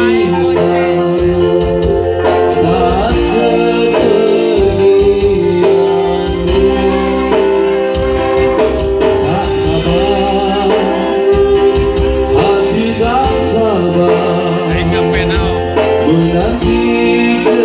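Instrumental break of a song: sustained melody lines over a steady beat, with no lyrics sung.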